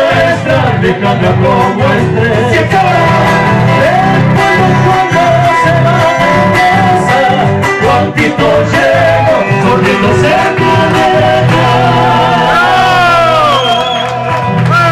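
Live folk band playing acoustic guitars with an accordion carrying the melody, steady throughout, with a few sliding notes near the end.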